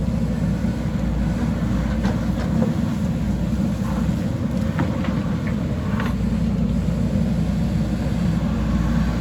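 JCB backhoe loader's diesel engine running steadily under work, with a few short sharp knocks about 2, 5 and 6 seconds in.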